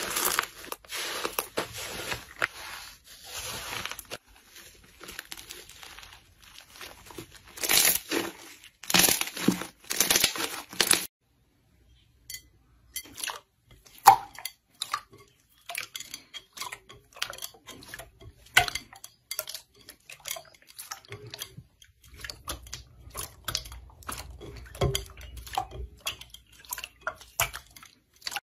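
Foamy 'cotton' slime squished and stretched by hand, giving a dense fizzing crackle. After a short break about eleven seconds in, a clear jelly 'fake water' slime is pressed with the palms, giving separate wet pops and clicks.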